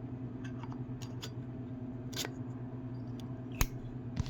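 Scattered light clicks and taps of small objects being handled, a sharper click about three and a half seconds in, over a steady low hum.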